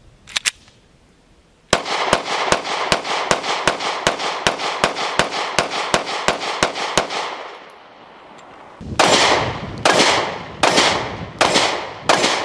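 Anderson Manufacturing Kiger 9C 9mm pistol being fired. After a few sharp clicks, a fast string of about twenty shots comes at roughly four a second. After a brief pause, slower single shots about two-thirds of a second apart follow, each with a longer echo.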